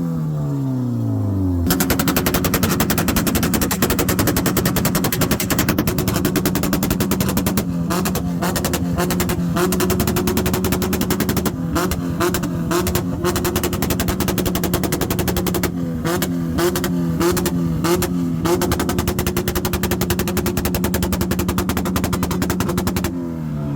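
Car engine revved and held at high revs, its exhaust crackling with a rapid machine-gun-like run of pops and bangs. The revs fall off in the first second or two before being held steady for a long stretch.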